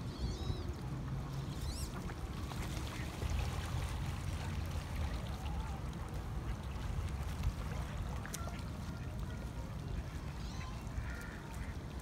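Wind rumbling steadily on the microphone, with a few faint, scattered bird calls.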